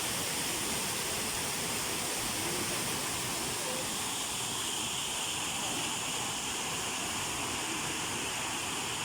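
Steady, unbroken rush of a waterfall, an even roar of falling water with no pauses.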